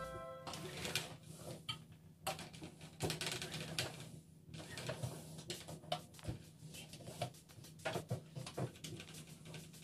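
Electric iron being pushed back and forth over a shirt on an ironing board: irregular scraping strokes and light knocks of the iron against the fabric and board.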